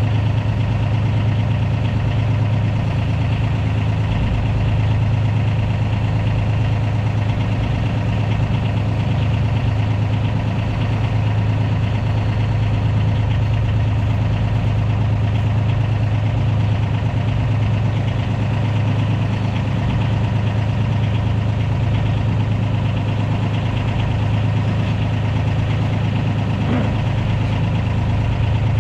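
A small fishing boat's engine runs steadily at trolling speed, a constant low hum with no change in pitch.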